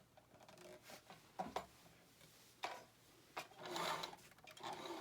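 Singer 5528 sewing machine running in two short bursts, driving the bobbin winder to wind thread onto the bobbin, with the hand clutch loosened so the needle stays still. A few light clicks come before the first burst.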